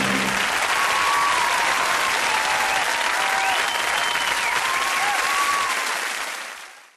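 Studio audience applauding, with the band's last chord stopping about half a second in. The applause fades out over the last second.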